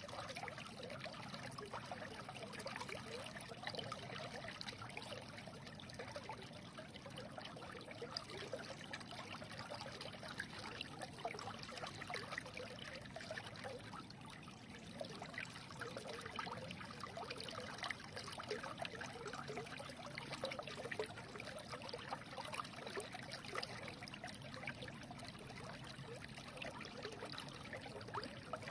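A small stream trickling and babbling over stones, a steady bubbling with a mass of small splashes.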